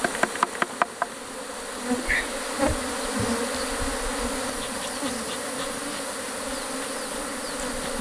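Honeybees humming steadily around an opened Langstroth hive, with a few sharp knocks of the wooden hive boxes being handled in the first second.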